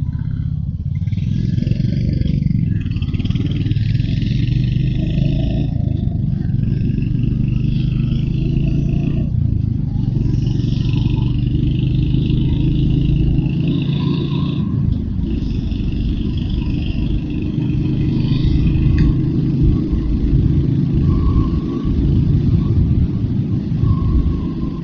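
Royal Enfield Hunter 350's single-cylinder engine running steadily as the motorcycle is ridden along the road, with a dense low rumble of wind and road noise under it.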